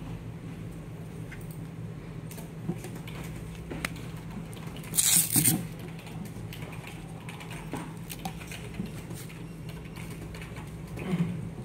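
Handling of a glove-mounted ring scanner and its holster: small clicks and rustling over a steady low hum. About five seconds in there is a short two-part rip as a hook-and-loop strap is pulled open, and a softer one near the end.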